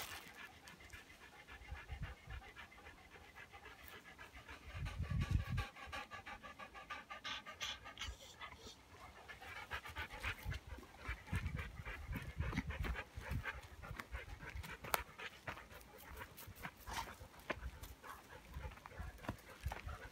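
A dog panting rapidly and rhythmically through the whole stretch, with a few low rumbles about five seconds in and again around eleven to thirteen seconds.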